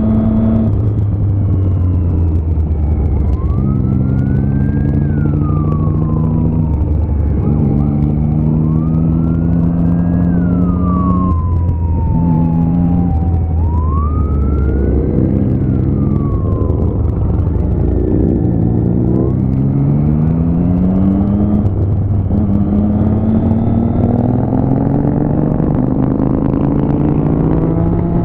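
Motorcycle engine running under the rider, its pitch stepping up and down with gear changes. In the first half a police siren wails in three slow rising-and-falling sweeps.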